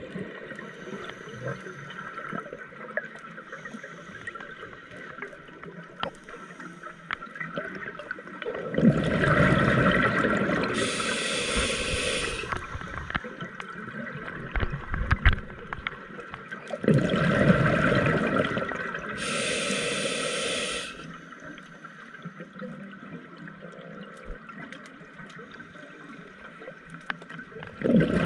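Scuba diver breathing through a regulator underwater: two long gushes of exhaled bubbles about nine and seventeen seconds in, with a third starting near the end, and quieter stretches between as air is drawn in.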